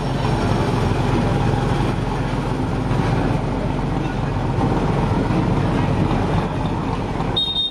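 Large old road roller's engine running steadily, a deep, even rumble.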